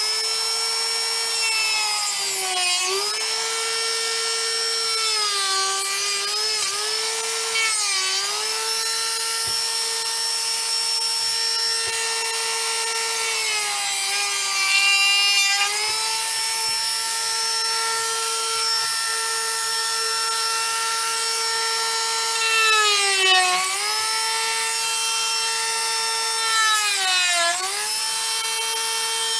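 Handheld rotary tool running at high speed with a steady whine. Its pitch dips several times as the bit is pressed into the work and the motor slows under load, then climbs back.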